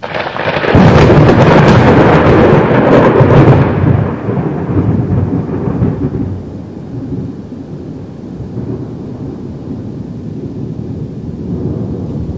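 Thunder: a sudden loud thunderclap with high crackling at the start. It rolls on for about four seconds, then fades into a long, lower rumble.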